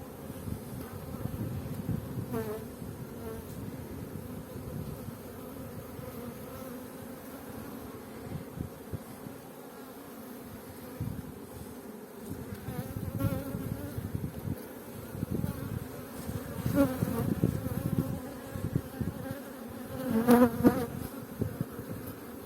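Honeybees from an open hive buzzing steadily, with louder swells in the last few seconds as bees fly close.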